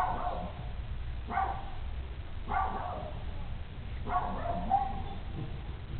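American Staffordshire Terrier puppy crying out four times in short high-pitched calls about a second apart, the last one drawn out longer.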